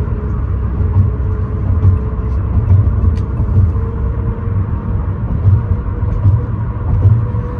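Road and engine rumble inside a moving car's cabin: a steady low rumble with a fainter steady hum above it.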